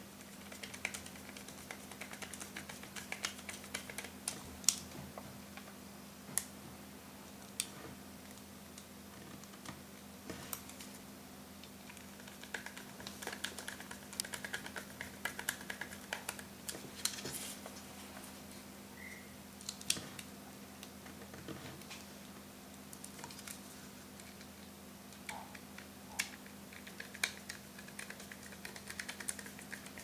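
Small screwdriver driving screws into a laptop hard drive's metal caddy: scattered light clicks and ticks of metal on metal, with a couple of stretches of faint scraping as screws are turned in.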